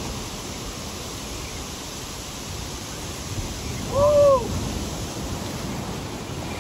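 Ocean surf breaking and washing over a rocky shoreline, a steady rushing noise. About four seconds in, one short pitched sound rises and falls, the loudest moment.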